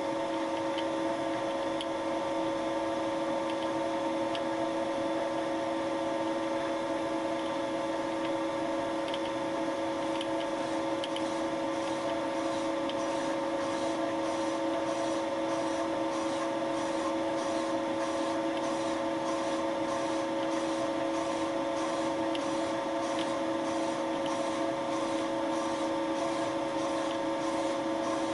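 Thiel Duplex 158 milling machine running at a steady speed with a steady whine, turning a Wohlhaupter UPA5 boring head that is cutting out a plastic bearing seat. Faint, regular ticks sound over the whine.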